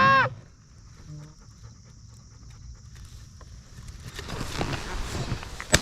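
A quiet stretch with a faint, steady high insect hiss and rustling movement that grows after about four seconds, then a single sharp crack just before the end: the first shotgun shot at geese coming in to land.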